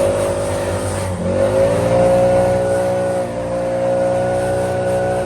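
Gas leaf blower running at high throttle, its pitch dipping and climbing back up about a second in, used to blow clumps of wet grass clippings out of the lawn.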